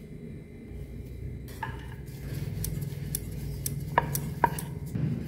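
Wooden rolling pin rolling dough thin on a wooden board: a low rumble with a scatter of sharp clicks and knocks, the two loudest about four seconds in.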